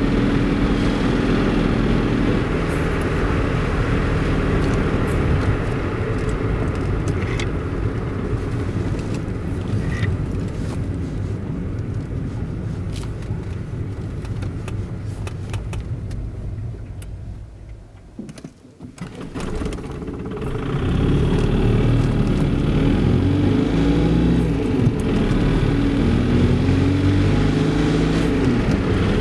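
The Öko-Polo's supercharged two-cylinder direct-injection diesel running on the move, then switched off by its automatic coasting stop-start system so that only tyre and wind noise is heard, dying to a low ebb about 18 seconds in. About 20 seconds in the engine is running again and pulls away, its pitch rising and falling.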